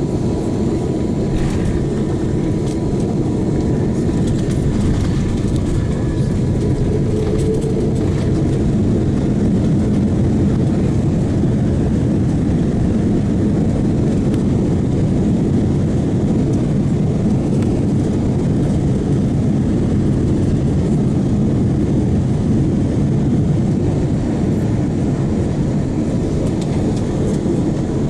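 Airbus A330-200 cabin noise during the landing rollout on a wet runway: a loud, steady rumble of the engines, airflow and wheels, heard inside the cabin.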